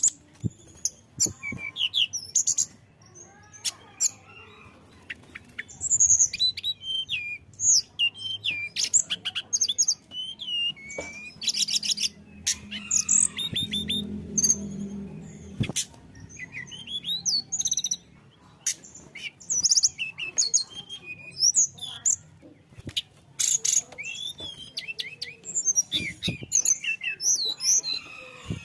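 Tledekan gunung, a blue flycatcher, singing a fast, varied song of high chirps, trills and quick sweeping whistles, phrases following one another with barely a pause.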